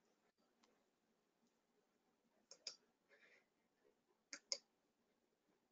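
Computer mouse clicks, two quick pairs a couple of seconds apart, over near-silent room tone.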